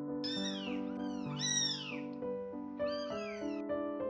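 A young kitten mewing three times, high-pitched calls that rise and fall, over piano background music.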